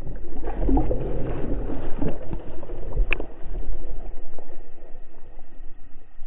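Muffled rushing and sloshing of water over an action camera held at the surface in its waterproof housing, with a deep rumble, as a hooked fish thrashes and splashes close by. A single sharp tick comes about three seconds in.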